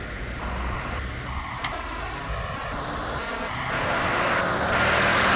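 A city bus runs and passes close by amid street traffic, its engine a steady low hum. A hissing swell builds toward the end.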